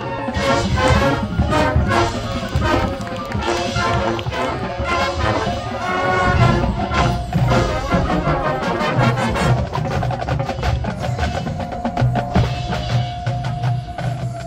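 High school marching band playing its field show: brass and woodwinds over drums and front-ensemble mallet percussion, heard at a distance from high in the stands. In the last few seconds the winds hold a long note while the percussion strokes go on.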